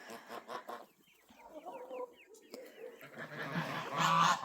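Hens clucking, with short falling chirps among them. Geese start honking about three and a half seconds in, and the honking grows to be the loudest sound by the end.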